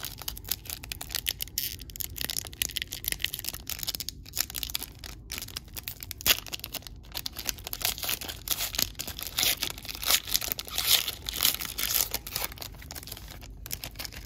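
Foil wrapper of an Upper Deck trading card pack crinkling and tearing as it is peeled open by hand: a dense run of sharp crackles, busiest in the second half.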